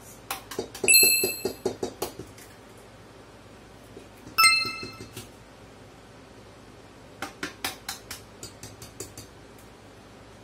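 Eggs being cracked against the rims of stainless steel mixing bowls: runs of quick, sharp taps, two of which ring out metallically, about a second in and again midway. Another run of lighter taps comes near the end.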